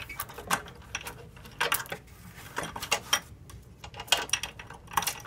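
Steel roller chain of a lawn aerator clinking and rattling as it is handled and fed around a sprocket: a string of irregular metallic clinks.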